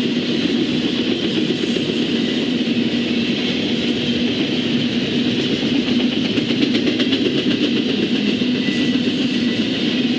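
Train passing: a steady rumble and rattle of wheels on rail, with a quick run of clicks about six to seven seconds in.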